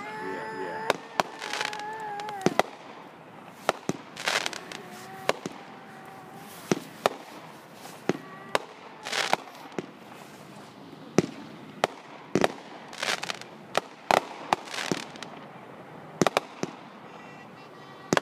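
Consumer firework cake firing shot after shot: shells hiss up and burst with sharp bangs and pops, about twenty in all, with a steady whistle in the first two or three seconds.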